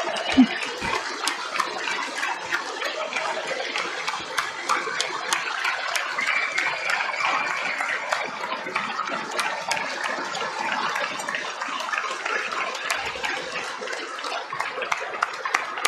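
A large crowd giving a standing ovation: dense, sustained applause with a few cheers rising out of it.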